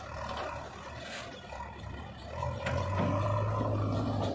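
Diesel engine of a JCB 3DX backhoe loader running under load as its front bucket tips a load of soil into a tractor trolley, with the soil spilling and clattering in. The engine note rises and holds louder about two and a half seconds in as the bucket is lifted.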